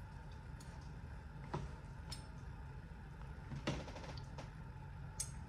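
Faint, scattered clicks and taps of a lime juice bottle and a measuring spoon being handled at the counter, about half a dozen in all, over a low steady room hum.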